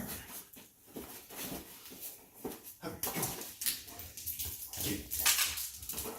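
Basset hound playing with a toy: irregular snuffling, mouthing and rustling noises, with a few short low sounds from the dog.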